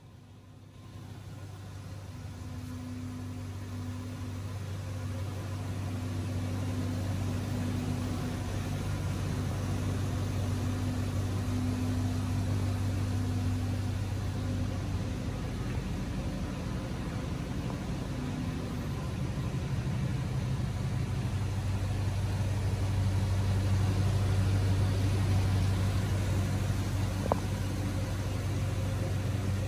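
1998 Chevrolet Tahoe's engine idling steadily, with one short tick near the end.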